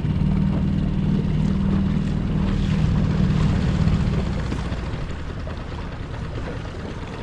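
A steady engine drone, loud for about the first four seconds and then fading away.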